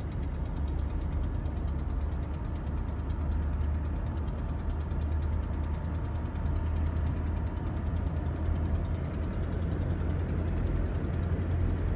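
1990 Oldsmobile Custom Cruiser's V8 lugging at low rpm with the torque converter clutch locked up at low road speed, a steady low drone. The lockup solenoid engages too early, so the converter stays locked and strains the engine.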